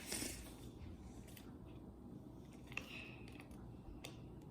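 Faint, scattered clicks and taps of small plastic toy parts being handled and fitted together.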